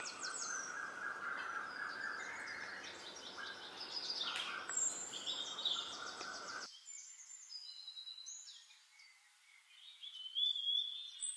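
Small birds chirping and whistling in short high calls over a low, even background hum. The hum cuts out about two-thirds of the way through, leaving only the chirps, then a brief near-silence before a few more high whistles near the end.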